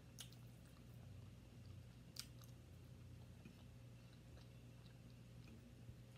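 Faint eating sounds: quiet chewing, with two sharp clicks, one just after the start and another about two seconds in, over a steady low hum.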